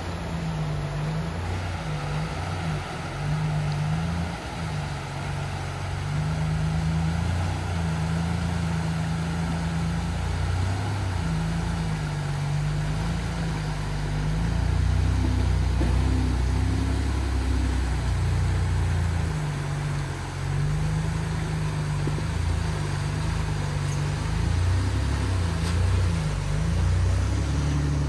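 A Toyota LandCruiser 100 Series four-wheel drive's engine pulling the vehicle through a river crossing, with water rushing and splashing around it. The sound gets louder about halfway through.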